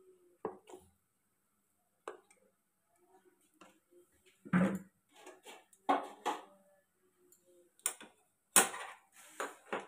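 Mustard oil heating in a wok, giving scattered sharp pops and crackles, the loudest a little under five seconds in and near the end.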